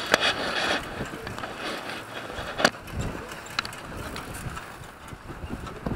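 Rattling and clicking of a pedal rickshaw rolling along a street, with scattered sharp knocks over a steady rolling noise and a little wind on the microphone.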